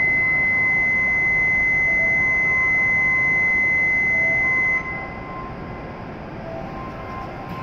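Shinkansen platform departure buzzer: a steady high electronic tone held for about five seconds, then cutting off suddenly, signalling that the doors are about to close before departure. Fainter short lower tones sound on and off under it, over a steady station hum.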